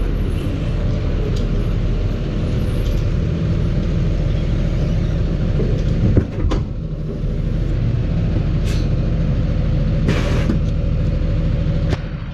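Heavy goods lorry's diesel engine running steadily, with a brief knock about six seconds in and a short hiss of air near the end.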